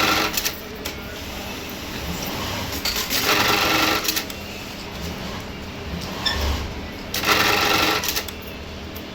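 JAXI 1891 button sewing machine running short stitching cycles of about a second each, three times, with quieter clicks between the cycles.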